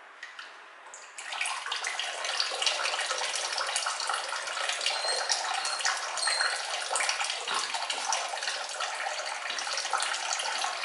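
Water running from a mixer tap into a small basin: turned on about a second in, then a steady splashing flow. The tap has just been reassembled with its cleaned seals and is being tested after a leak repair.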